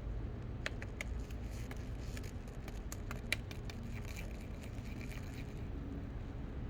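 Steady low background rumble with scattered faint clicks and scrapes.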